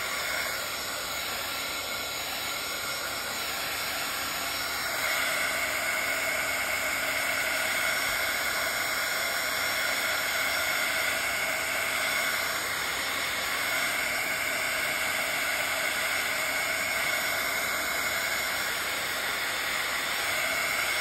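Craft heat tool blowing hot air steadily to dry wet acrylic paint, a constant whooshing hiss that gets a little louder about five seconds in.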